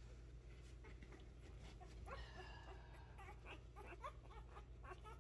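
Faint squeaking and whimpering of five-day-old poodle puppies: one longer whine about two seconds in, then a run of short rising squeaks.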